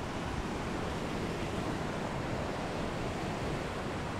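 Steady rushing seaside ambience of wind and surf, with no breaks or separate events.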